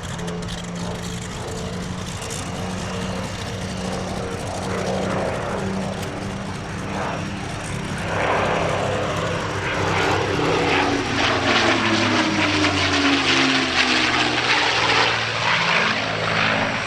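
XP-82 Twin Mustang's two piston engines driving propellers, running steadily and growing much louder about eight seconds in. The engine note then slides down in pitch as the aircraft passes.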